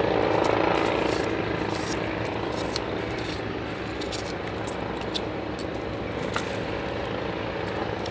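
A steady low rumbling hum, with scattered light crisp ticks of a knife blade cutting and peeling papery shallot skin.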